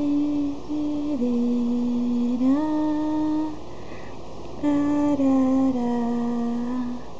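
A slow, simple tune of long held notes, in two short phrases with a pause of about a second between them; the second phrase steps down in pitch note by note.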